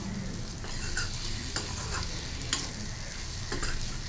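Steel spoon stirring and scraping diced brinjal frying in a kadhai, with a few sharp clinks of the spoon against the pan over a steady sizzle.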